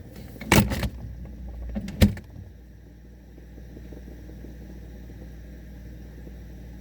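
Refrigerator door being pushed to, with a couple of knocks and then a sharp thud as it shuts about two seconds in. After that there is only a steady low hum, muffled, as heard from inside the closed fridge.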